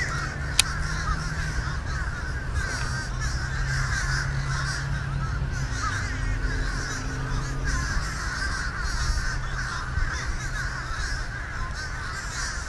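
A dense, steady chorus of many overlapping harsh bird calls, with a low rumble underneath.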